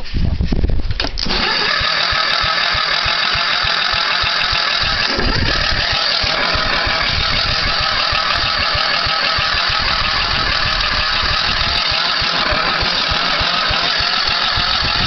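A small gasoline engine running steadily with a fast, even pulse, starting about a second in after a brief bump.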